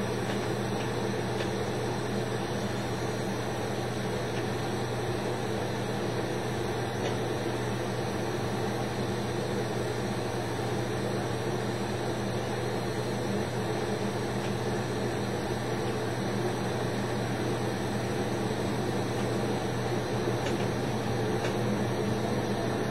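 Lampworking torch flame burning with a steady rushing hiss and an even hum underneath, unchanging throughout.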